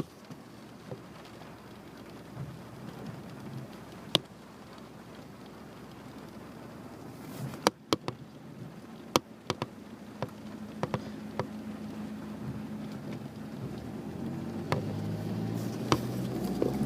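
Rain falling, with scattered sharp taps of heavy drops striking a hard surface, and a low rumble building over the last few seconds.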